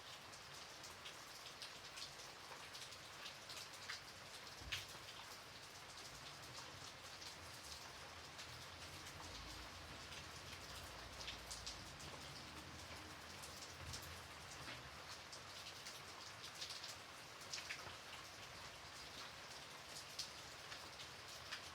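Gentle, faint rain falling steadily as an even hiss, with single drops striking now and then as distinct ticks. A soft low rumble rises and fades about ten seconds in.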